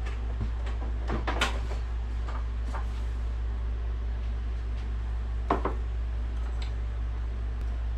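A few short clicks and knocks of a jar and kitchen utensils being handled on a counter as minced garlic is measured out, the loudest about five and a half seconds in, over a steady low hum.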